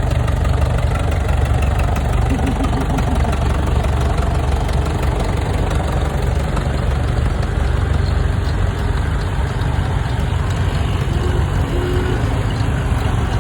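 A vintage engine idling steadily.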